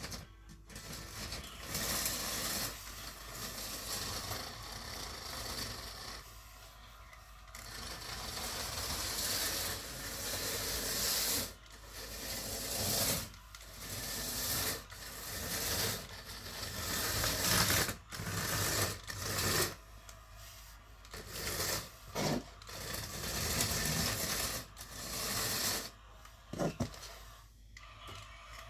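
Model train running around a loop of track, a rasping, whirring rattle of motor and wheels on the rails that swells and fades every couple of seconds as it comes past and goes away again.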